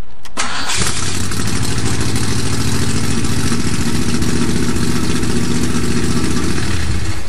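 Car engine started by a push-button ignition: a brief click, then the engine catches and runs steadily, stopping abruptly near the end.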